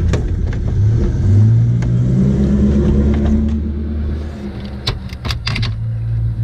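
A motor vehicle's engine running with a low hum that rises a little in pitch about a second in and fades after about four seconds. Near the end come a few sharp clicks and knocks of the plastic radiator fan assembly being tilted and pulled out.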